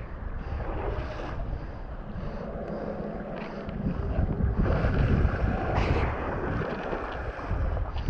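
Wind buffeting the camera's microphone while kitesurfing on the sea, with water rushing and splashing past. It grows louder about halfway through.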